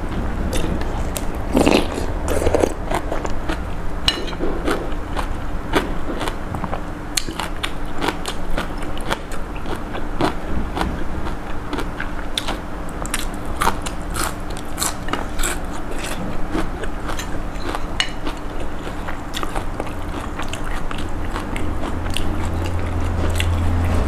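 Close-miked chewing and lip-smacking of a person eating a mouthful of pork noodle soup, a steady run of short wet clicks a few times a second.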